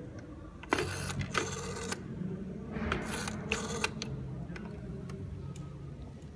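Rotary telephone dial being wound round and whirring back, twice, each turn a short burst of rapid ticking with sharp clicks, over a low steady hum.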